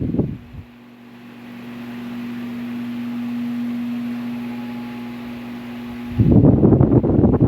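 Ventisol New 60 cm wall fan running. Its air blast buffets the microphone with a loud rumble at the start and again from about six seconds in. Between those, the motor's steady hum and the rush of the blades are heard.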